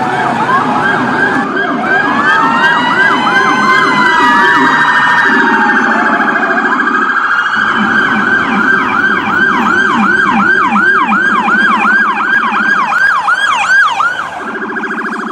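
Several electronic emergency sirens sounding at once: slow rising and falling wails in the first half, then a fast yelp at about two to three sweeps a second, over a lower, rapidly pulsing tone. The yelp stops near the end, leaving the lower tone.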